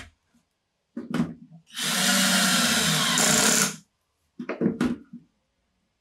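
Cordless drill-driver running steadily for about two seconds as it works a screw into a small plywood disc, with a few short knocks of handling just before and after.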